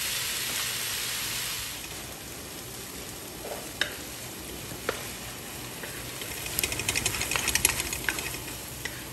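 Kimchi and spring onions frying in a non-stick wok, stirred with a wooden spatula; the kimchi is fairly dry, its juice cooked off. The sizzle dies down after about two seconds, then the spatula knocks the pan twice and scrapes quickly across it near the end.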